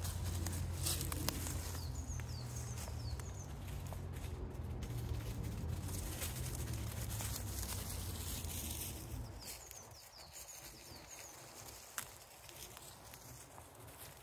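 Woodland ambience: a low rumble on the microphone that dies away after about nine seconds, with faint short high chirps of small birds and a few light clicks.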